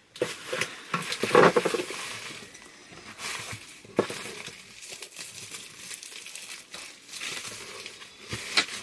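Packaging crinkling and rustling as an item is handled and unwrapped, with a few sharp knocks; the loudest burst comes about a second and a half in.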